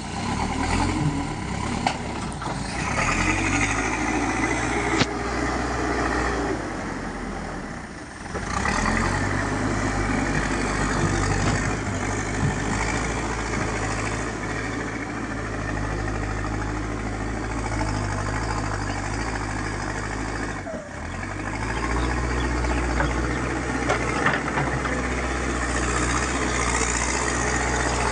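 Backhoe loader's diesel engine running, its pitch and level rising and falling as it works under load, with two brief drops partway through.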